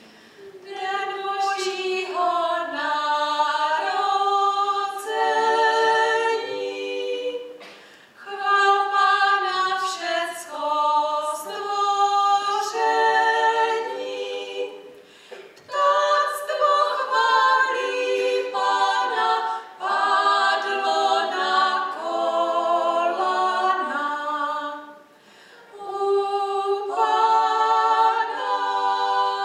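Mixed choir singing a Moravian folk carol a cappella, several voices in harmony, in phrases broken by short pauses for breath.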